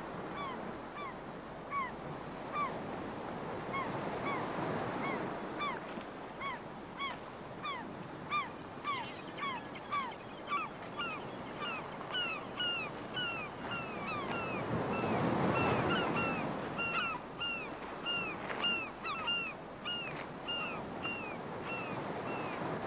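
Birds calling in a long, regular series of short hooked calls, about two a second, growing stronger partway through, over waves washing onto a shingle beach; one wave swells loudest about fifteen seconds in.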